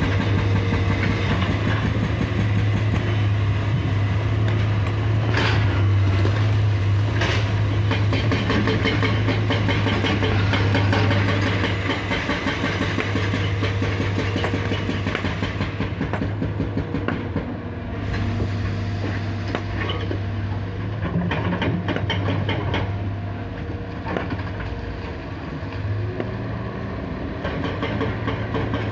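Large excavator's diesel engine running steadily while rocks are loaded into a dump truck, with a few sharp knocks early on and a dense rattle of stone clattering from about halfway through.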